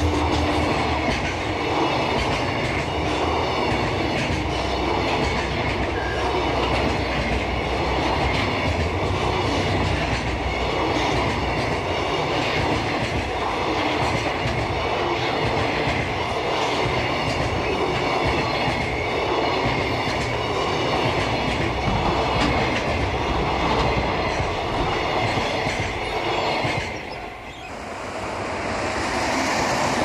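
Container freight train passing at close range, its wagons' wheels running steadily along the rails. About three seconds before the end the noise drops away sharply, then builds again.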